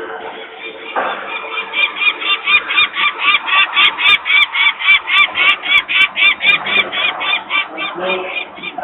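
Adult peregrine falcon giving a long run of harsh, rapid cacking calls, about four a second: the alarm call of a parent disturbed at the nest by people nearby.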